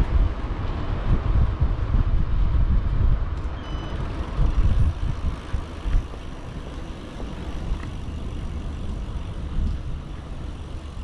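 Wind buffeting the microphone and rolling noise while riding an e-bike, a gusty low rumble that is loudest for the first six seconds and then eases to a steadier rumble.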